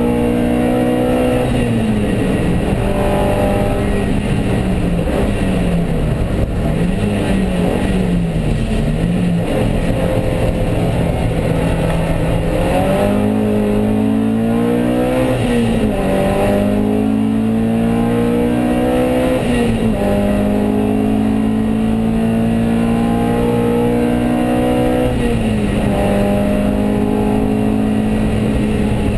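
Alfa Romeo Alfasud race car's flat-four engine heard from inside the cabin, running hard at high revs, the revs dropping and climbing again several times between long steady flat-out stretches.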